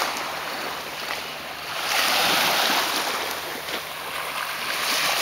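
Small waves washing up onto a sandy shore, the surge swelling about two seconds in and again near the end.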